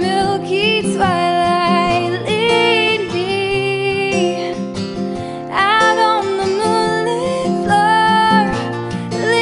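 Background music: a pop song with strummed acoustic guitar and a held, gently wavering melody line over steady chords.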